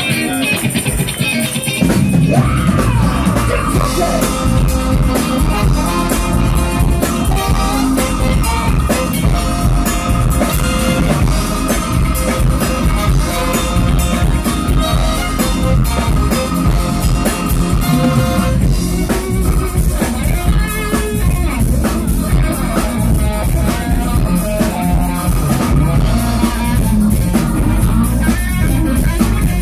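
Live soul-rock band playing through a PA: electric guitar, keyboards, drum kit and singing voices. The full band comes in fuller about two seconds in.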